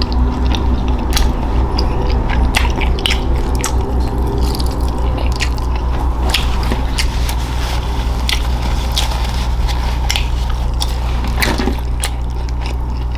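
Close-miked mouth eating sounds: biting and chewing with many short wet clicks and squishes at an irregular pace, over a steady low hum.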